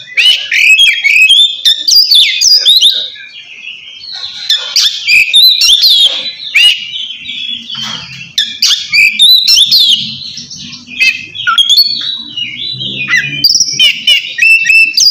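Oriental magpie-robin (kacer) singing loudly and without pause: a rapid, varied run of clear whistled notes that rise and fall, in the full 'ngeplong' song style.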